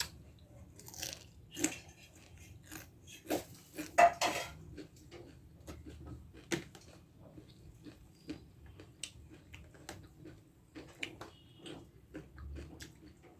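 Eating sounds at close range: scattered clinks and scrapes of utensils and dishes, with a cluster of louder knocks about three to four seconds in, and chewing in between.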